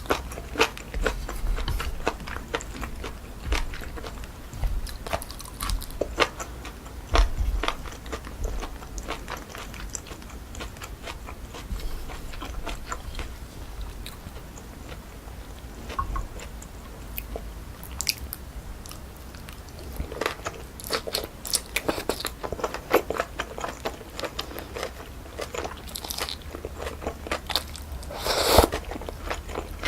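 Close-miked eating of cold pork trotters with jellyfish salad: repeated crunching and chewing with many short sharp clicks. It grows busier in the last third and has one louder crunch near the end.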